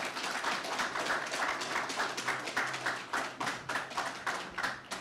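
Audience applauding: a small seated crowd clapping steadily, thinning out near the end.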